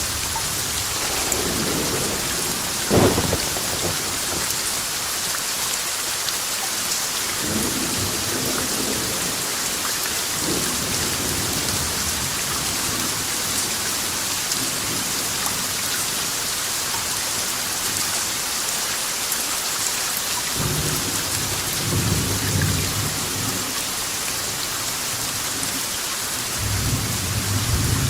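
Steady heavy rain hissing, with thunder: a sharp crack about three seconds in, then several low rolling rumbles, the longest about two-thirds of the way through and another near the end.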